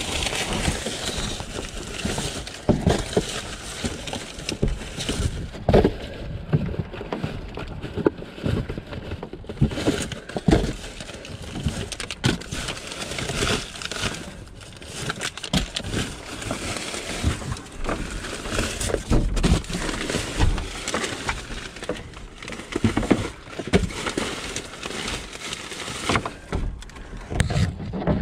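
Rummaging through trash in a dumpster: plastic bags and food packaging rustling and crinkling, with irregular knocks and thumps as items and a cardboard box are handled.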